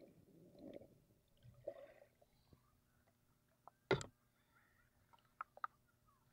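Muffled underwater bubbling from a swimmer exhaling through the mouth, heard through an action camera's underwater housing, in the first second and again briefly near two seconds. About four seconds in comes one sharp knock of water against the camera as it comes up out of the water, followed by a few small drip-like ticks.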